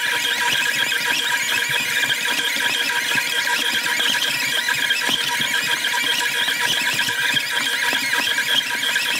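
KitchenAid stand mixer kneading dough with its dough hook, its motor sound played at four times speed so that it becomes a steady, high-pitched whir.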